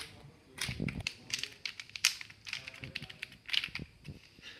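A cheap, poor-quality plastic puzzle cube being turned by hand: its layers clack and click irregularly, several times a second, with a duller knock about a second in.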